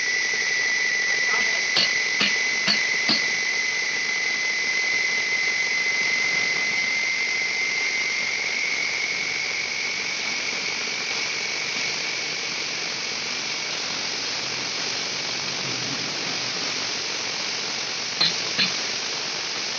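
A steady hiss with a thin whistling tone that slowly fades, broken by a few sharp knocks about two seconds in and again near the end.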